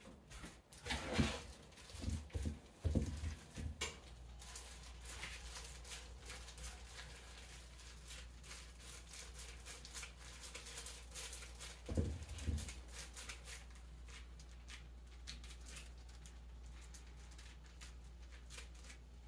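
Gloved hands squeezing and patting a wet chicken, cheese and egg mixture into nugget patties: quick, soft crackling and squishing of thin plastic gloves. A few dull bumps in the first few seconds and again about twelve seconds in, over a steady low hum that comes in after about four seconds.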